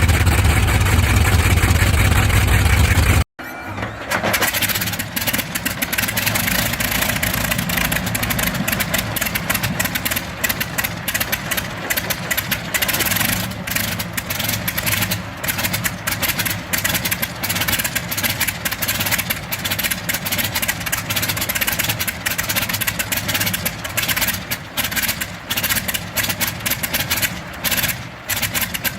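A piston propeller aircraft engine running loudly, cut off abruptly about three seconds in. Another old propeller aircraft engine then starts and runs unevenly, with frequent brief dips in its sound.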